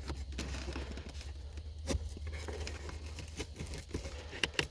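A pleated cabin air filter being bent and worked out of its plastic housing: irregular crinkling, scraping and small clicks.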